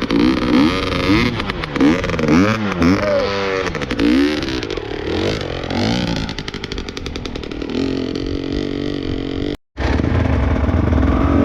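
Off-road trail motorcycle engine revved up and down over and over in quick throttle blips, then running steadier. About two-thirds of the way through, the sound cuts out for a moment, then a steady engine comes back.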